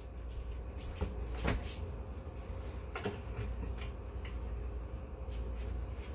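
Steady low hum with a few faint knocks and clicks of kitchen doors being opened and closed.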